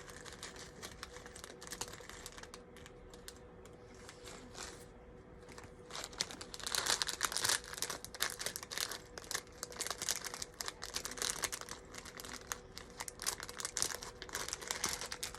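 Plastic parts bag crinkling and small Lego bricks clicking and clattering while being rummaged through, busier and louder from about halfway in.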